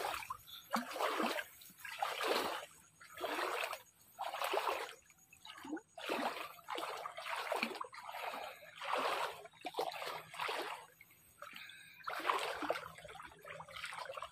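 Bare feet wading through shallow river water, a splash with each step at a steady walking pace of about one step a second.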